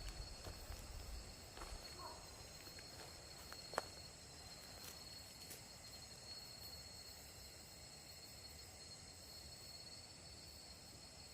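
Faint outdoor ambience with a steady high-pitched insect call and a few faint clicks, one of them sharper a little under four seconds in.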